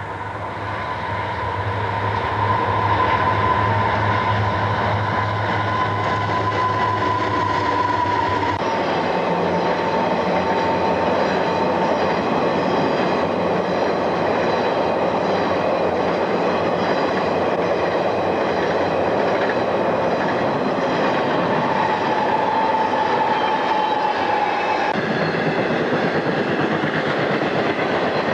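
Freight train passing close by: a diesel locomotive and railcars rolling over the rails, with wheel clatter and a steady high whine. The sound changes abruptly about 8 seconds and 25 seconds in.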